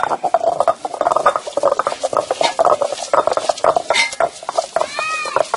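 Coconut pieces being crushed and ground in a traditional granite stone grinder (aattukal), the stone pestle knocking and scraping against the stone basin in a rapid, uneven run of crunching strokes.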